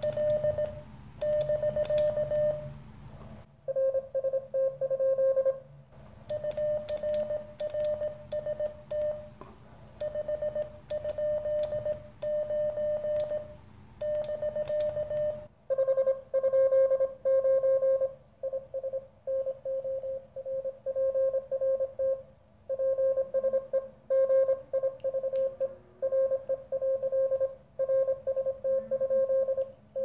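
Morse code (CW) tones from a Weber Soda Pop transceiver during a two-way exchange. The first half is the operator's own sending: a keyed sidetone with sharp clicks from the Morse key, broken by a short reply. From about halfway, the other station answers in a slightly lower keyed tone through the small speaker.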